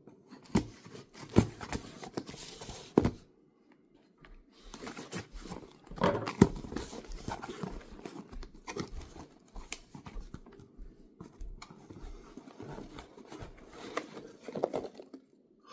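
Cardboard shipping package being opened by hand: tape cut and torn, flaps and packing material rustled, with scattered knocks of the box being handled.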